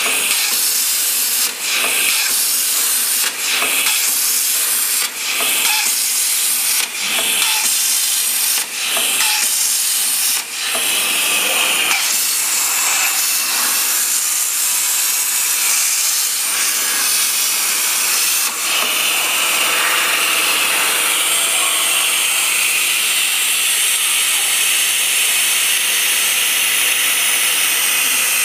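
CNC plasma torch cutting stainless steel sheet: a loud, steady hiss. Over the first ten seconds or so it breaks briefly about every one and a half to two seconds, then runs on without breaks.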